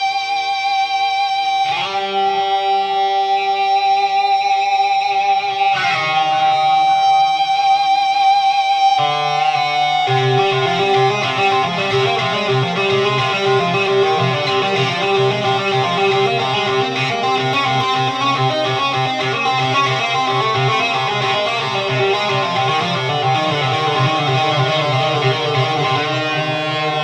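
Electric guitar driven through a Plush Box overdrive pedal into a high-gain amp channel with tape echo, playing a lead: long held, sustaining notes that change every few seconds, then busier playing over a heavier low end from about ten seconds in.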